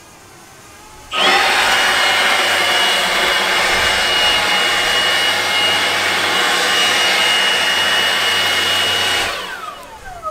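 Milwaukee M18 cordless leaf blower, blowing through a long PVC pipe gutter attachment, switched on about a second in and running at a steady blast with a high fan whine. Near the end it is let off and winds down with a falling whine.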